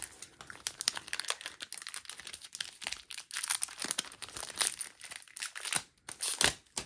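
Foil wrapper of a Digimon card game booster pack crinkling and crackling as it is torn open and peeled back by hand, with a sharper crackle near the end.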